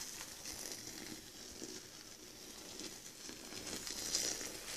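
Boiling water poured in a thin stream into a plastic bucket onto dry birch sawdust and a coconut coir brick: a steady splashing hiss with fine ticks, getting a little louder about four seconds in.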